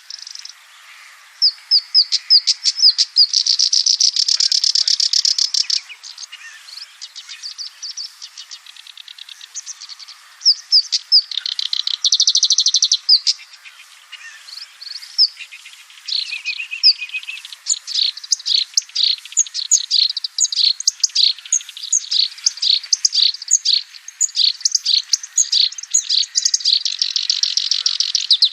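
Black-browed reed warbler singing: a long, varied song of rapid chirps and repeated notes mixed with buzzy trills, broken by a few short pauses.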